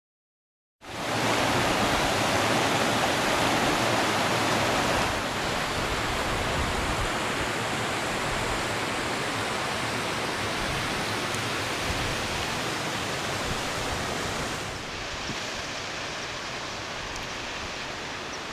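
Steady rush of running water from a mountain torrent. It starts about a second in and drops a little in level twice, about five seconds in and again near the end.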